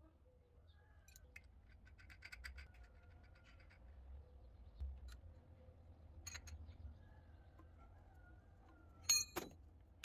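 Faint metallic clicks and scrapes of an open-end wrench working the nut on a basin hanger bolt set in the tiled wall, with a sharp ringing clink near the end that is the loudest sound.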